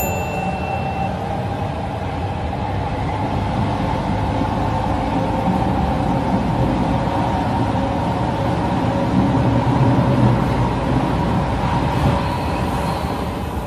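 Subway train running, heard from inside the car: a steady rumble with a held hum. A short high beep sounds right at the start.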